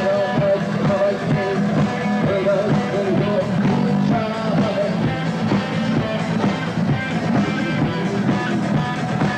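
Rock band playing live in concert, with a singer's voice over the band.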